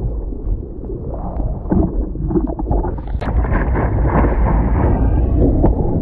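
Strong wind buffeting the microphone over the hiss of breaking surf, which swells louder from about halfway through.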